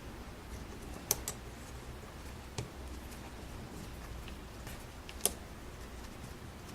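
Small screwdriver clicking and ticking against the tiny screws and metal of a hard drive as a replacement circuit board is screwed on. Scattered faint ticks, with a few sharper clicks: two close together about a second in, one more a little later, and another about five seconds in.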